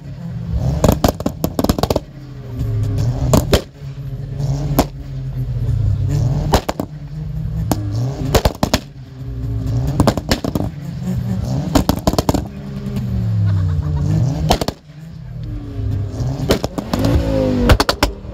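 A modified car's engine is revved over and over, the note climbing and falling back about every two seconds. Sharp bangs and crackles come from the exhaust, some in quick rapid-fire runs.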